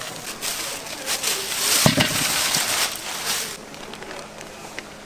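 Chicken frying in a cast-iron gamasot cauldron of hot oil: a surge of loud sizzling that swells about half a second in, peaks with a knock about two seconds in, and dies down after about three seconds.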